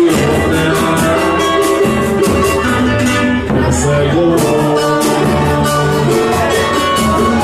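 A band playing Brazilian popular music: quick, steady percussion over bass and chords.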